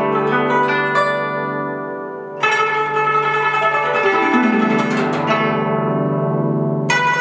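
Guzheng played solo: plucked notes ring and fade, then a loud attack about two and a half seconds in is followed by a falling glissando down the strings. Another strong attack comes near the end.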